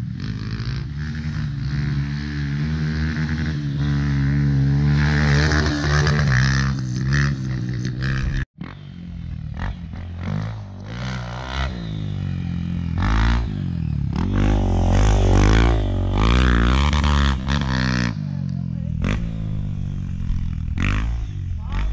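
Dirt bike engine running and revving hard, its pitch climbing and dropping again and again as it accelerates and backs off. The sound cuts off abruptly about eight and a half seconds in, then picks up again with more rising and falling revs.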